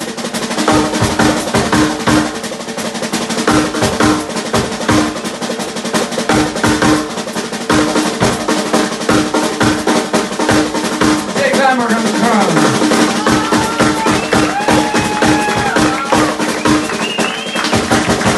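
Live band playing, with a busy drum kit of snare, bass drum and cymbals over sustained organ and electric guitar. About twelve seconds in, a long note slides down in pitch, followed by several bending, wavering high notes.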